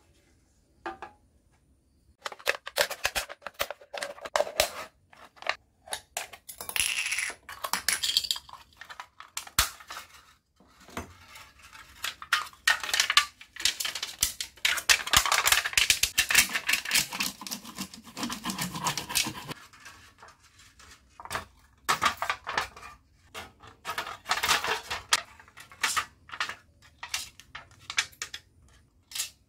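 Thin aluminium sheet from a soda can being handled, crinkled and cut: irregular crackling, metallic clicks and snips in bursts with short pauses, starting about two seconds in. Near the end, scissors snip through the sheet.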